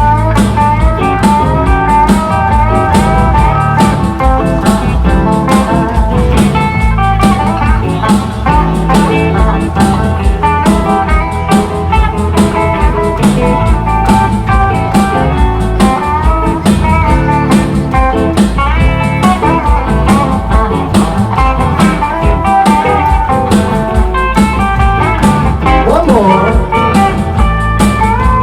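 Live band playing a bluesy instrumental break: a lead guitar solo with bent notes over bass and drums.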